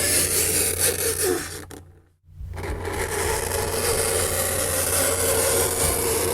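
Fingernails scraping across a chalkboard, a continuous rasping scrape. It fades out about two seconds in, stops for a moment, and then starts again.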